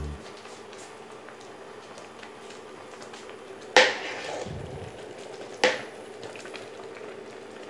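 Basmati rice boiling in a large steel pot of water, a steady faint bubbling, while it is parboiled for biryani. A metal slotted spoon knocks sharply against the pot twice, about four and five and a half seconds in, as the rice is stirred.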